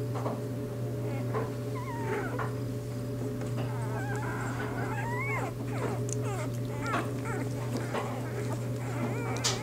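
Newborn Bernese Mountain Dog puppies whimpering, with many short, high squeaks that rise and fall in pitch, over a steady low hum.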